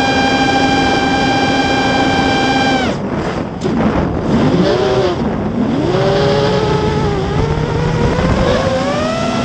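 Spedix Black Knight 210 race quadcopter's motors and propellers whining at a steady high pitch, heard from the camera on the quad itself. About three seconds in the pitch drops away suddenly as the throttle is cut, swoops down and up a few times as the throttle is worked, then climbs back into a steady whine.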